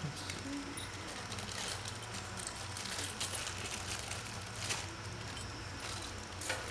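Scattered light clicks and taps of small metal parts being handled while fitting a lawn-tractor carburetor and its choke arm, over a steady low hum.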